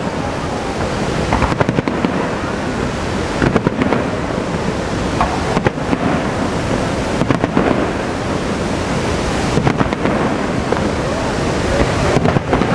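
Fireworks display: aerial shells bursting with sharp bangs every two seconds or so over a steady rushing background noise.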